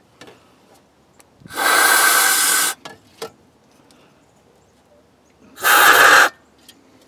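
Aerosol spray can spraying in two bursts, the first about a second long and the second shorter, with faint clicks between.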